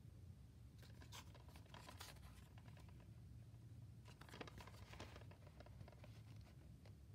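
Faint scrapes and light clicks of a plastic DVD case being handled and turned over in the hand, in two short spells, over a low steady hum.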